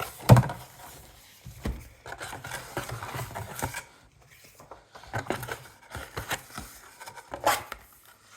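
Cardboard box packaging being handled: sliding and rubbing of card, with a few sharp knocks, the loudest just after the start and another near the end.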